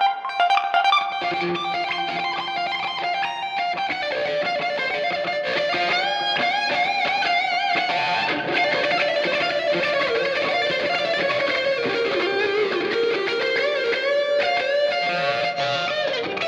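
Distorted electric guitar played through the Brainworx Mega Dual amp sim, a high-gain Mesa Boogie Dual Rectifier emulation, in a full-mix tone test. Short picked notes in the first few seconds give way to a sustained lead line with bends and vibrato.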